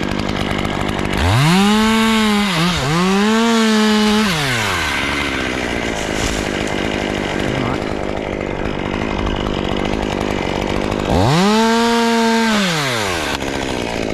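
Two-stroke chainsaw revved to full throttle twice, each time holding a high steady whine for a couple of seconds before dropping back to idle; the first run dips briefly in the middle.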